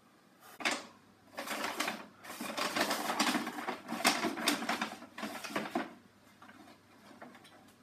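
Paper and cardboard rustling and crinkling as hands dig through a cardboard box and pull items out, in several bursts, fading to faint handling about six seconds in.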